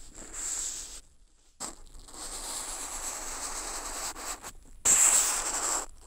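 Ink brush strokes dragged across paper, heard through a contact microphone fixed to the sheet: a short scratchy stroke, a pause, a long stroke of about three seconds, then a louder stroke near the end.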